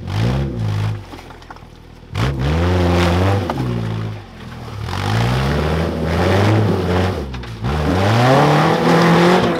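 Suzuki four-wheel drive's engine revving up and dropping back several times under load as it crawls up a loose rock climb, its pitch rising with each surge.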